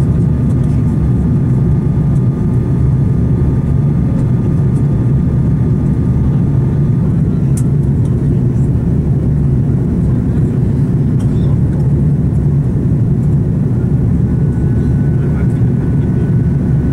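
Steady low cabin noise of an Airbus A340-300 airliner in its climb after takeoff: its four CFM56 turbofans and the airflow over the fuselage, heard from a window seat. A faint high steady whine fades out about seven seconds in, and another begins near the end.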